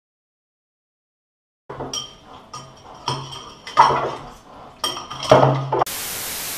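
Cutlery clinking and clattering against a bowl as it is clumsily handled, starting after a short silence, with two louder clatters. Near the end it gives way to a burst of TV-static hiss.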